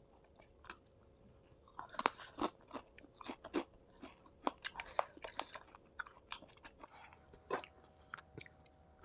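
A person chewing and crunching a meal of fried fish, rice and fish curry close to the microphone: irregular short wet clicks and crunches, sparse at first and coming thicker from about two seconds in.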